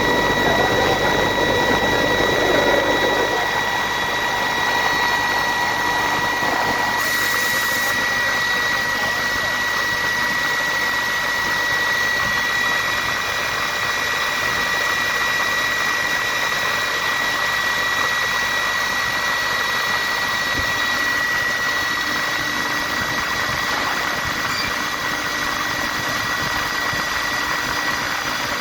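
Atlas Copco GA15 rotary screw air compressor running steadily with a constant high-pitched whine over its machine noise. This is the abnormal sound linked to a belt problem.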